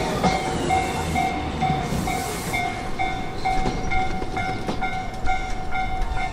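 Train running along the rails, with an electronic bell ringing in even pulses about twice a second over it; the ringing stops abruptly at the end.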